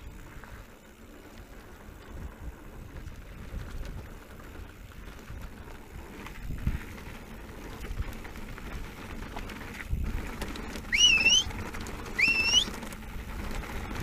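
Specialized Turbo Levo electric mountain bike rolling down a gravel track, its tyres rumbling and crunching over loose stones with wind on the helmet camera. Near the end come two short rising squeals a little over a second apart, the loudest sounds here.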